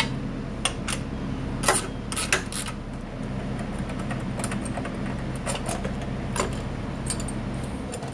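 A few light metallic clinks and clicks of hand tools and small hardware being handled, most of them in the first two and a half seconds, over a steady low hum.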